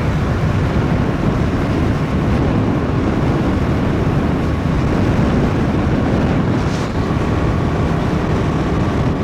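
Motorcycle engine running steadily at road speed, with wind noise on the helmet and bike microphones.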